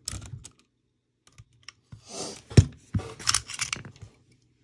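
Clicks and clatter of plastic and metal parts of an airsoft M4 being handled on a work mat during disassembly, with one sharp knock about halfway through and a quick run of rattling clicks after it.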